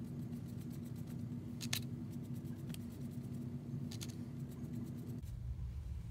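A paintbrush works a watercolour painting, giving a few light ticks and scrapes on the paper and in the plastic paint palette over a steady low hum. The hum changes abruptly about five seconds in.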